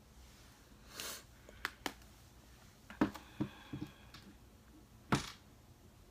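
Small makeup containers and tools being handled: a scattering of light clicks and taps, with a short hiss about a second in and another about five seconds in.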